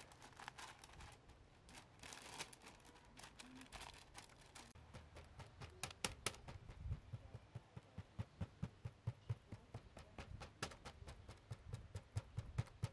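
Soft rustling and crinkling, then from about six seconds in a run of regular knocks, each a crisp click with a dull thud, about three a second.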